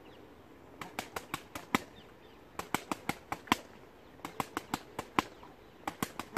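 Punches landing on boxing focus mitts in quick combinations: about four bursts of five to seven sharp slaps each.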